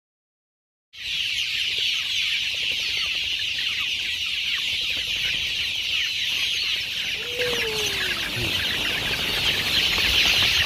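A large flock of young kampung chickens peeping all at once, a dense, continuous high-pitched chorus that starts suddenly about a second in. A lower call slides downward once past the middle.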